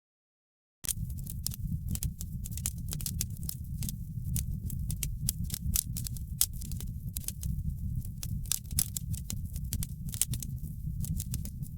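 Wood fire burning in a fireplace: a steady low rumble of flames with many quick, irregular crackles and pops. It begins after a short dead silence of under a second at the very start.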